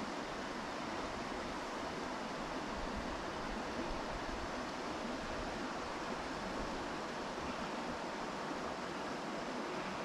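Mountain stream water rushing steadily, an even wash of noise with no distinct events.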